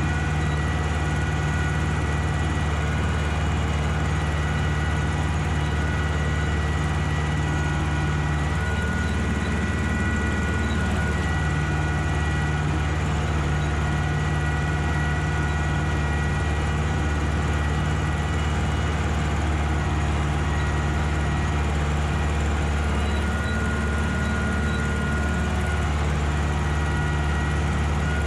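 Ursus tractor's diesel engine running steadily under load while cultivating a field, with a thin steady whine above the engine drone. The engine note lifts briefly about nine seconds in and shifts again a few seconds before the end.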